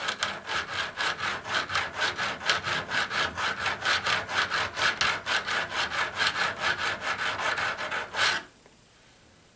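Hand file rasping back and forth over a soldered model railroad rail joint, in quick even strokes about five a second, smoothing off the excess solder. It stops suddenly about eight and a half seconds in.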